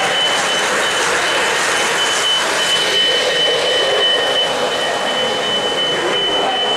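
O-gauge model train rolling on three-rail track amid the steady din of a busy hall, with a steady high whistle-like tone that stops near the end.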